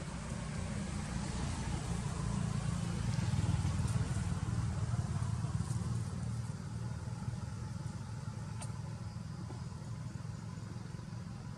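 Low rumble of a passing motor vehicle, swelling to its loudest about four seconds in and then fading slowly.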